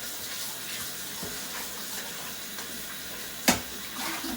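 Kitchen tap running into a sink while a large cooking pot is washed and filled, with one sharp knock about three and a half seconds in.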